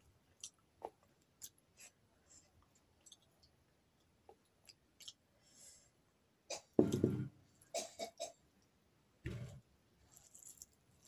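Close-miked eating sounds: chewing, lip smacks and small wet clicks of hand-eaten rice and fish, with two louder mouth bursts about seven and nine and a half seconds in.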